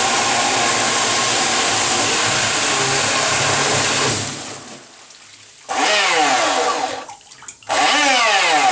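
Electric motor driving a 53mm jet-drive impeller at high throttle in a bathtub: a loud steady rush of churning water with a motor hum, cut back about four seconds in. Then twice the motor is briefly revved with the unit held out of the water, its whine falling in pitch as it spins down.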